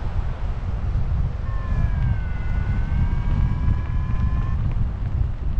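Wind buffeting the camera microphone in a steady, gusting low rumble. A faint held tone rises out of it about a second and a half in, dips slightly and climbs back, and stops about three seconds later.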